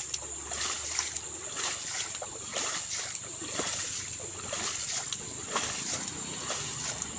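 Muddy water splashing and sloshing, a splash about every half second, as a shovel scoops water and throws it over a carabao wallowing in a mud pool.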